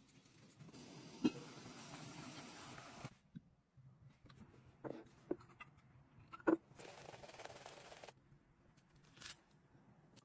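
Liquid poured from a glass pitcher into a small glass: two spells of steady hiss, with sharp clinks of glass or ice between them.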